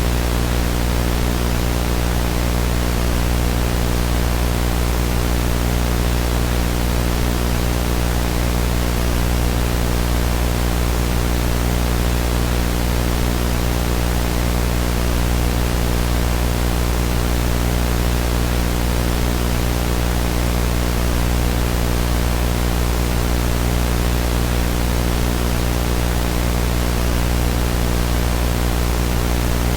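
TV glitch sound effect: a loud, steady static hiss over a low electrical buzz, unchanging in level and pitch.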